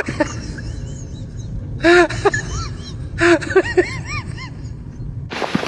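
Short pitched animal calls, each rising and falling, in two quick clusters about two and three to four seconds in, over a steady low rumble.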